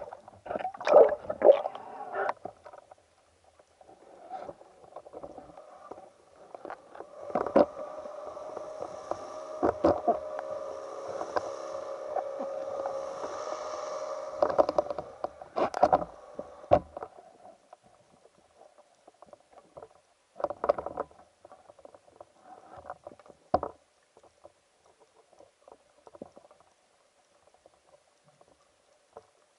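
Muffled underwater knocks and clicks as a speargun, its shaft and line are handled and the line is hauled in. A steady hum runs for several seconds through the middle.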